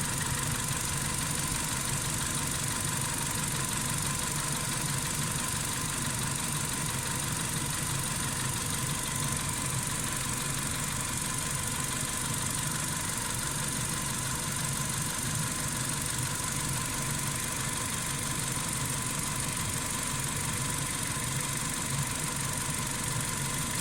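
Warm car engine idling steadily and quietly after a drive, with no hydraulic lifter tick yet heard.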